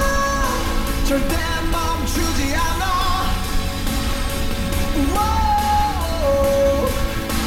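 Background pop song with a singer holding long, sliding notes over drums and full band accompaniment.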